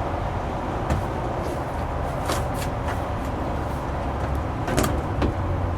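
Hard plastic clicks and knocks, about eight short taps and snaps spread over a few seconds, as a resin shed door is worked into place, over a steady low rumble.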